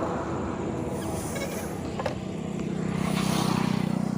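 Road traffic noise from a passing motor vehicle, its low engine hum growing louder from about two seconds in.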